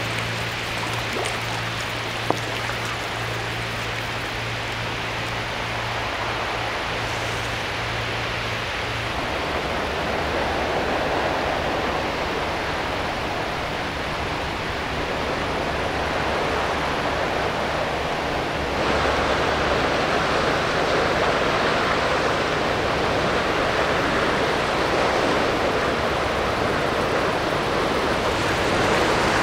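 Low, steady hum of a passing ship's engine under a steady rush of water noise. The sound changes abruptly twice: the hum drops away about nine seconds in, and the rushing grows brighter and louder near the twentieth second.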